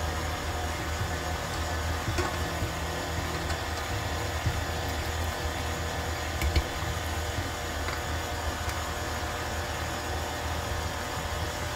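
KitchenAid Artisan tilt-head stand mixer running, its flat beater churning ground-beef meatloaf mix in the steel bowl: a steady motor hum with a few light knocks.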